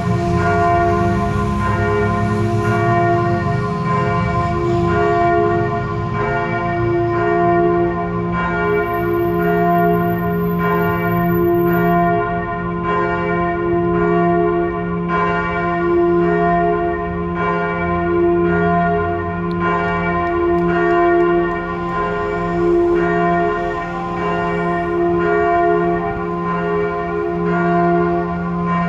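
Single swinging church bell tuned to f′ ringing alone, struck at an even, slow pace, its tones humming on between strokes.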